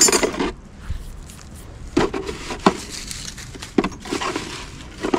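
Objects being handled and knocked about in a small room: a clatter at the start, then a few short, separate knocks, as when canisters and bottles are shifted around.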